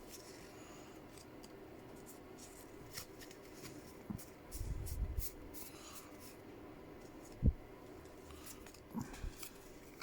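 Pokémon trading cards handled by hand: light papery flicks and slides as cards are turned over one by one, with a short run of soft low thumps near the middle and a single sharper knock about seven and a half seconds in.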